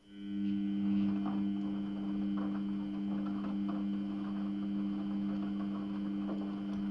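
Samsung front-loading washing machine starting up: a steady hum rises in at the start and holds, with faint irregular crackling over it.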